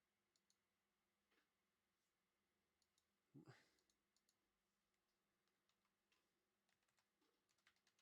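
Near silence: room tone with a few faint clicks and one brief soft rustle about three and a half seconds in.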